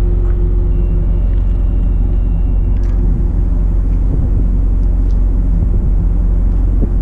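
Loaded bulk carrier's main engine running steadily at dead slow ahead, heard as a continuous low rumble.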